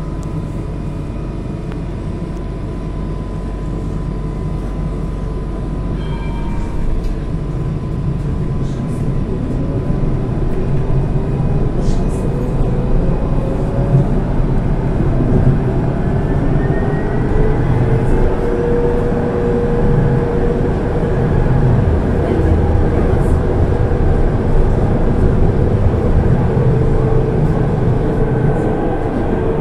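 Alstom tram heard from inside the passenger car as it pulls away and picks up speed. The running noise grows louder and an electric whine rises in pitch, then settles into a steady tone over a low rumble. A thin steady tone sounds for the first six seconds or so.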